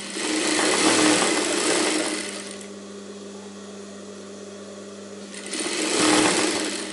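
Industrial sewing machine stitching a joining seam across two fabric strips, in two runs of about two seconds each: one at the start and one near the end. The motor hums steadily in the pause between.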